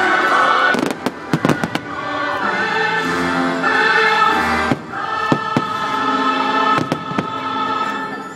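Aerial fireworks shells bursting in sharp bangs over choral and orchestral show music with long held chords. A cluster of bangs comes about a second in, and more single bangs follow through the rest.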